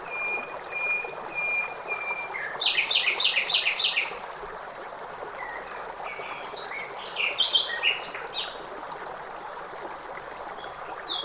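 Songbirds calling over the steady rush of a stream. A bird gives a run of evenly spaced whistled notes, then a quick burst of sharp chirps about two and a half seconds in, and more varied chirps around the seven-second mark.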